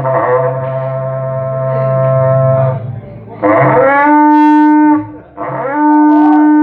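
Berrante, the Brazilian cattle-calling horn, blown in long calls: a low held note that stops about three seconds in, then two higher blasts, each sliding up at the start and then held steady.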